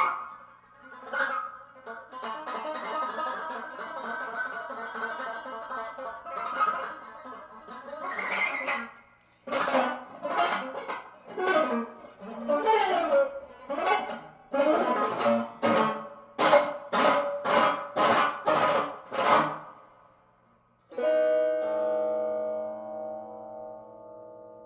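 Electric guitar played unaccompanied: a picked, chordal passage, then a run of sharp strummed chord strokes, ending with one chord left to ring out and slowly fade.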